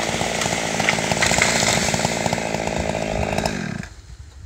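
Husqvarna two-stroke chainsaw running at full throttle, bucking a fallen oak log. The steady engine note cuts off abruptly about four seconds in.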